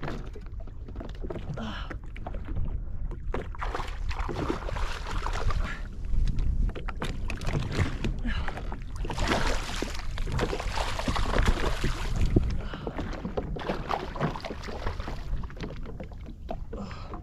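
Water sloshing and lapping around a drifting Sea-Doo jet ski, with wind rumbling on the microphone and a louder rush of splashing noise about nine to twelve seconds in.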